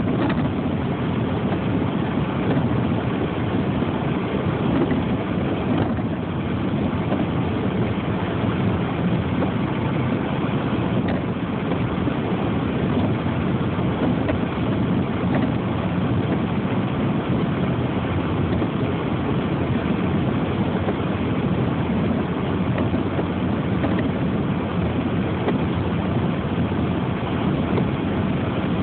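Steady vehicle running noise: a constant low rumble with hiss, unchanging throughout.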